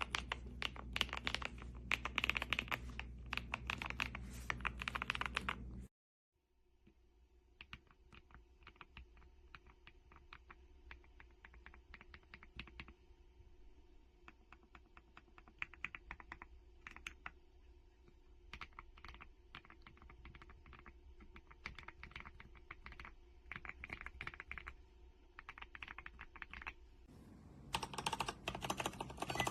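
Rapid typing on a mechanical keyboard, key after key clacking. About six seconds in, the sound cuts out abruptly and resumes as a quieter run of typing, which grows louder again near the end.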